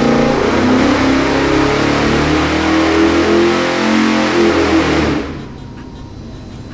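Ford 7.3L Godzilla pushrod V8 making a full-power sweep on an engine dyno, loud, its pitch climbing steadily as it pulls from about 3,500 to 5,300 rpm under the dyno's load. It cuts off abruptly about five seconds in as the pull ends at the top of the sweep.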